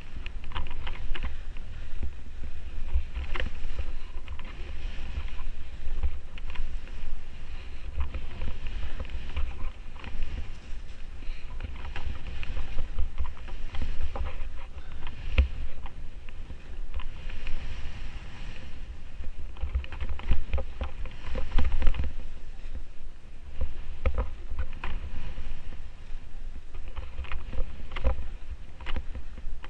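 Skis scraping and hissing through chopped-up snow on a steep descent, in irregular strokes with each turn. Wind buffets the microphone as a steady low rumble underneath.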